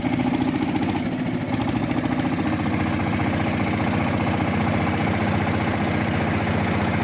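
An engine running steadily at an even speed, its firing beat quick and regular.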